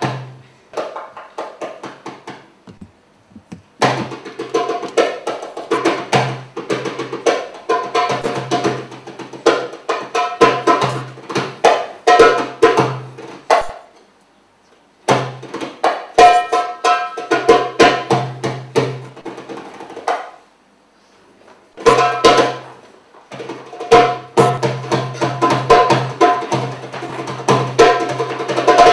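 Instrumental stage music with a struck, percussive rhythm, stopping and starting again in phrases, with short breaks a few times.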